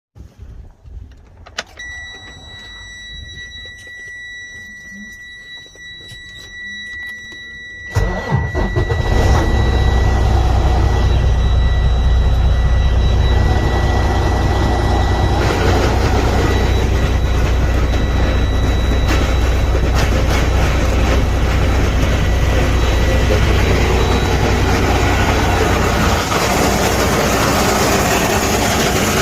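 Freightliner Cascadia diesel truck starting about eight seconds in, after a steady high-pitched tone, then running loudly with a steady low rumble. The loud noise is taken for internal gear damage in its 10-speed transmission.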